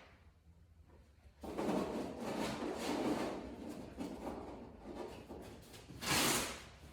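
A snowmobile fuel tank scraping and rubbing against the chassis as it is wrestled loose, with a louder scrape about six seconds in.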